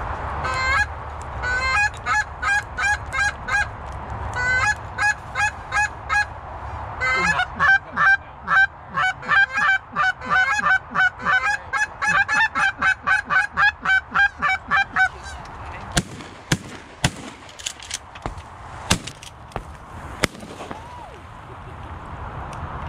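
Goose call blown by a hunter: a string of honks with a crack in the note, in short groups at first, then a fast run of clucks about three a second that stops about two-thirds of the way through. A few sharp clicks follow near the end.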